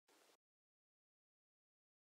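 Near silence: a pause in the narration with no audible sound.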